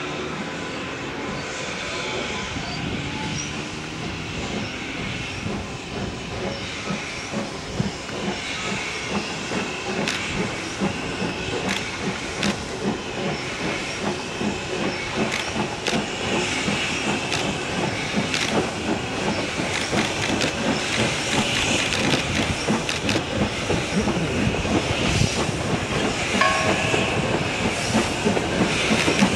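Steam locomotive 140 C 231, a 2-8-0 Consolidation, working a train of coaches: a regular rhythm of chuffing exhaust beats with steam hiss, growing steadily louder as it approaches.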